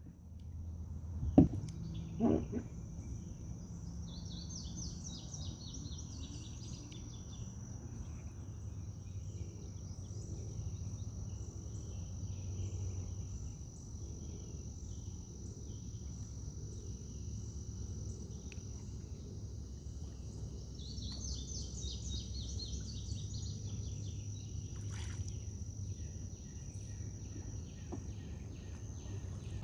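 Summer riverside ambience: a steady high-pitched insect drone, with bird calls in two bouts, over a low steady rumble. Two sharp knocks come in the first few seconds.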